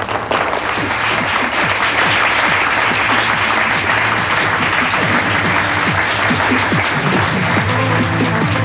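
Studio audience applauding steadily, with the show's closing theme music playing underneath and coming to the front near the end.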